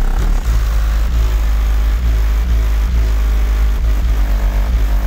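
A small pickup truck's aftermarket car audio system playing bass-heavy music very loud, its subwoofers putting out deep, heavy bass beneath the music.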